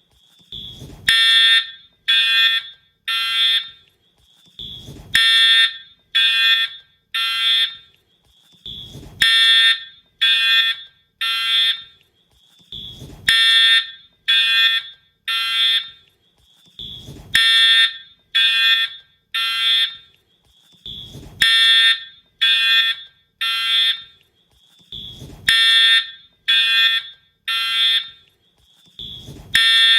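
Wheelock horn/strobe fire alarm horn sounding in the temporal-three evacuation pattern: three harsh half-second blasts, then a pause, repeating about every four seconds. A low thump comes at the start of each set of three.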